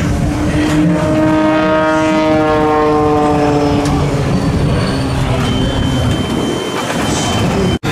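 Propeller-driven aerobatic plane's piston engine droning in flight, its pitch easing down slightly over the first few seconds before fading into rough background noise. The sound cuts out abruptly for a moment near the end.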